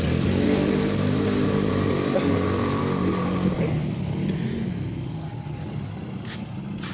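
Modified scooter-type motorcycle engine running steadily during warm-up, its sound fading away about four seconds in. A few sharp clicks follow near the end.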